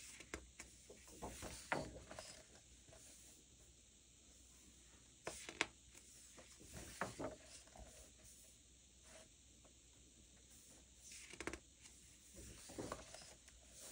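Coloring book pages turned by hand, three times about five to six seconds apart: each a brief paper rustle and flap with small taps.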